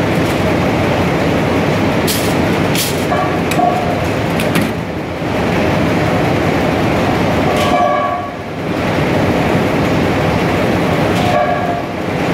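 Loud, steady clatter of textile mill machinery running. A short pitched tone repeats about every four seconds, and a few sharp clicks come about two to four and a half seconds in.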